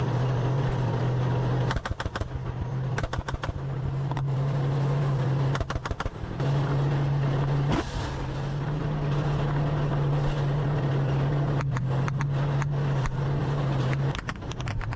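Tank engine running with a steady low drone, broken off briefly several times, with scattered sharp clicks.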